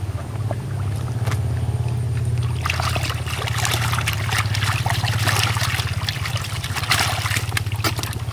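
Muddy water splashing and sloshing in a collapsible fishing bag as a catfish is grabbed and handled in it, starting about three seconds in and going on in irregular splashes. A steady low hum runs underneath.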